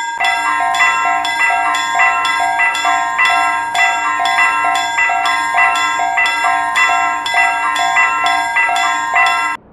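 Japanese railroad-crossing alarm bell ringing in an even rhythm about twice a second over a steady held tone, cutting off abruptly just before the end.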